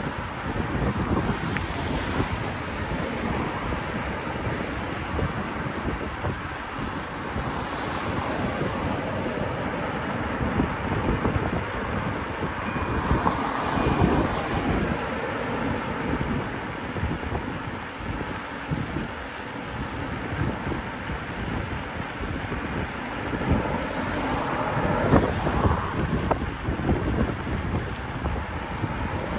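Wind noise buffeting the microphone of a camera on a moving bicycle, over city road traffic. There are two louder swells of passing vehicles, about halfway through and near the end.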